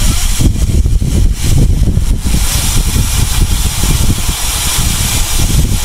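Wind buffeting the microphone of an onboard camera on a bicycle at race speed: a loud, constant rush, a fluttering low rumble with a steady hiss over it.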